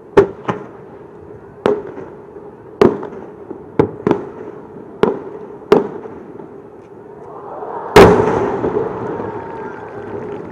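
Aerial fireworks shells bursting: eight sharp bangs over the first six seconds, then a much louder boom about eight seconds in that rumbles and crackles as it fades.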